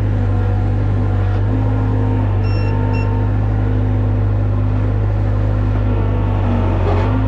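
Skid loader engine running steadily with a strong low hum, its pitch shifting slightly. There are two short electronic beeps about two and a half seconds in.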